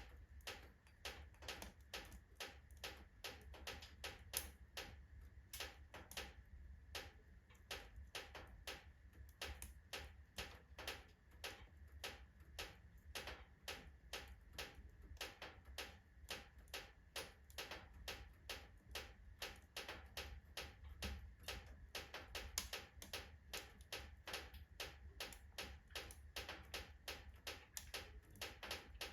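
Oak logs burning in a fireplace, crackling faintly with sharp, irregular snaps, several a second, over a low steady rumble.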